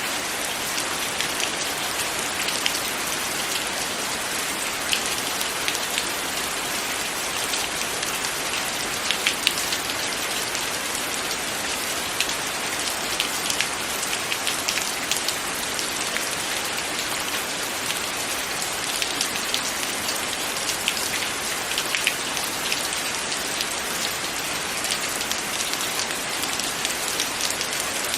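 Steady, heavy rain falling, with scattered sharp drop ticks over an even hiss.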